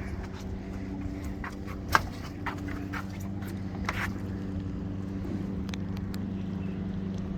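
Boat motor running with a steady hum, with a few sharp clicks and knocks on top, the sharpest about two seconds in.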